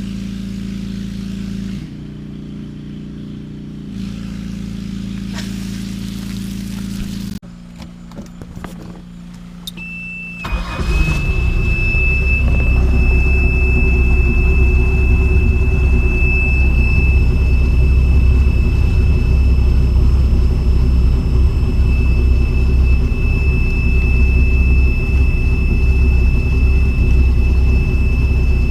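Background music for the first seven seconds or so. About ten seconds in a steady high beep comes on, and a moment later the boat's MerCruiser 4.3 Vortec V6 inboard starts and runs steadily. The high beep carries on over the engine.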